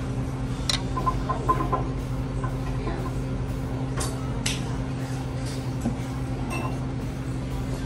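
A few light clinks of utensils against dishes, near the start and again about four seconds in, over a steady low hum.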